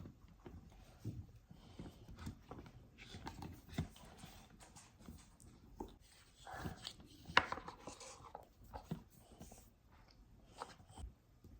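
Faint scattered taps, clicks and rustles of small objects being handled, with one sharper click about seven seconds in.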